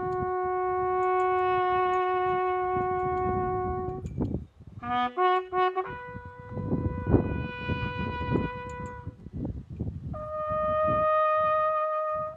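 Solo bugle call of long held notes: one low note for about four seconds, a few quick short notes, then two long notes each higher than the last, the final one cutting off at the end.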